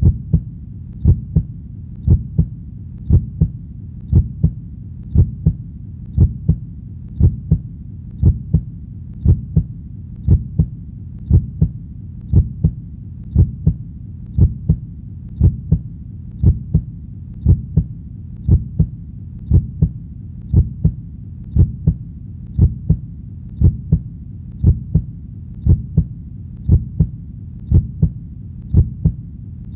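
Heartbeat: steady lub-dub double thumps, about one beat a second, over a steady low hum.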